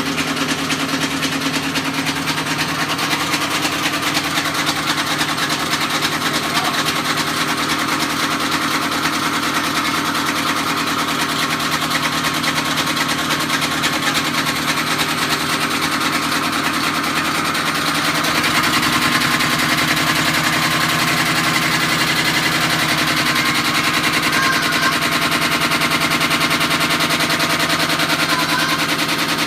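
Indesit washing machine running with a loud, continuous rapid rattling clatter over a steady hum: the noise of a broken machine. About two-thirds of the way through the sound shifts and gets a little louder and heavier.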